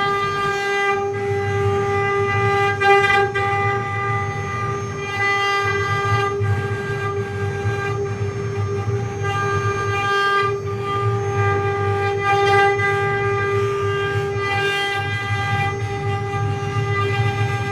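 CNC wood-carving router running: the spindle gives a steady high whine that does not change pitch, over a low rumble from the cutting that breaks off for a moment every few seconds.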